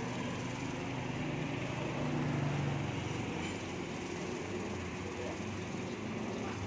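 Steady road-traffic noise, with a vehicle's engine hum swelling about two seconds in and fading a second later.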